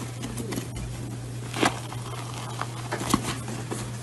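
Scattered crackles and clicks as hands handle a chocolate cake in a plastic container and tear it open, the sharpest about halfway through, over a steady low hum.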